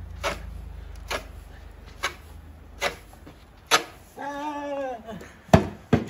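Snow shovel blade scraping and striking the sidewalk in five even strokes, a little under one a second. Then a man's drawn-out yell with a falling pitch, and a loud thud as he falls backward into the snow.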